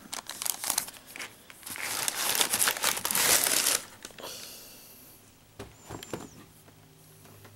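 Tissue paper rustling and crinkling as a sneaker is pulled out of its paper-lined shoebox, busy and loud for the first four seconds, then dying down to a few light knocks.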